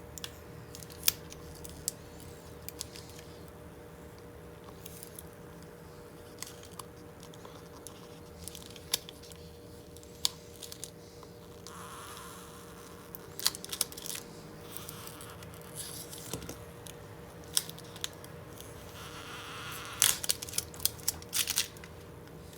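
Old polarizing film being scraped and peeled off an LG Gram laptop's LCD panel: scattered sharp clicks and short scratchy bursts, with a cluster of clicks near the end. A faint steady hum runs underneath.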